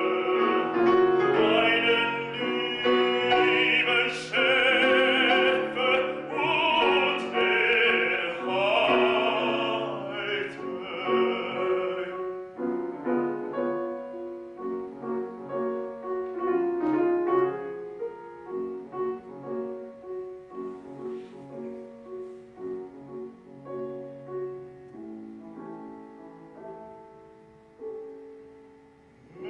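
A baritone sings with piano accompaniment, his voice wavering with vibrato. About twelve seconds in the voice stops and the piano plays on alone, quieter, dying away near the end.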